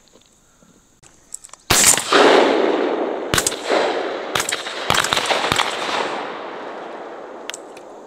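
A volley of shotgun shots at a passing dove, about six blasts from several guns between roughly two and five and a half seconds in, some close together. Each shot is followed by a long rolling echo that slowly dies away.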